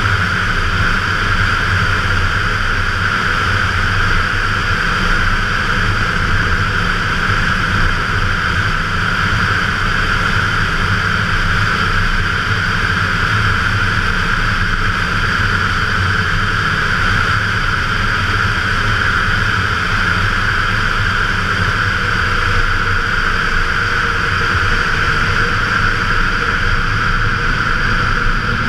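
Ford 302 (5.0 L) V8 of a 1995 F-150 droning steadily at cruising speed, with a constant rush of wind over the outside-mounted microphone.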